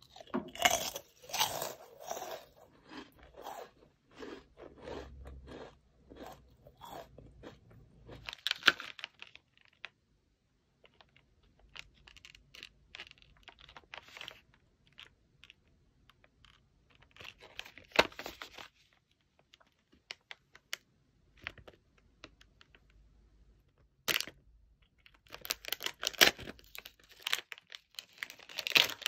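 Close crunching and chewing of Kkobuk Chip choco churros, a layered corn snack, for the first nine seconds or so. Then a plastic snack wrapper rustles and crinkles as it is handled, and near the end the wrapper is torn open.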